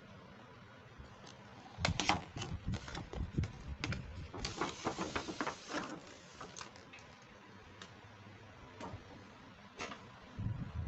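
Small plastic toy pieces and packaging being handled: a run of light clicks and taps starting about two seconds in, with a brief rustle in the middle, then a few scattered clicks.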